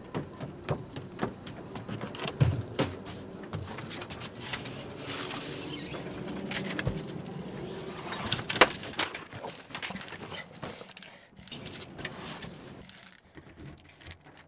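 Footsteps climbing wooden stairs, then a sharp click at a door and a bunch of keys jangling against a doorknob as the door is unlocked.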